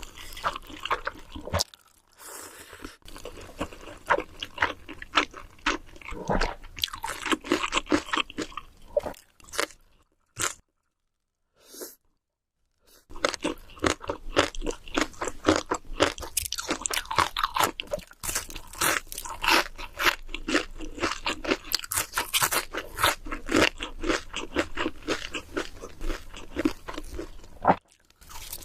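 Close-miked chewing of big mouthfuls of instant noodles: dense, rapid wet clicks and smacks, with a near-silent break of a couple of seconds around the middle.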